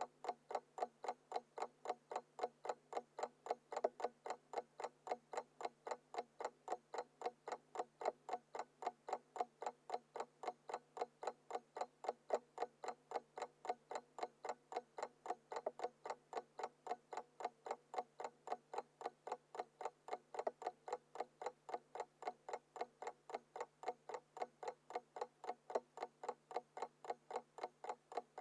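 Small mechanical alarm clock ticking: a quick, even train of sharp ticks, about four a second, with a faint steady hum underneath.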